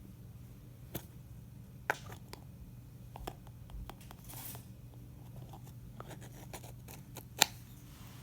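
Scattered small clicks and taps from handling things, with one sharper click near the end, over a low steady hum.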